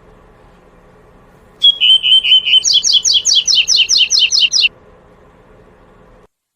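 Double-collared seedeater (coleirinho) singing one song of the 'tuí-tuí' type: a short run of notes, then a fast series of quick falling notes, about six a second, lasting about three seconds in all.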